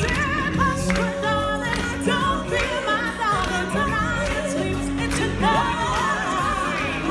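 Live stage-show music: singers on microphones singing with a wavering vibrato over an amplified backing band with a steady beat.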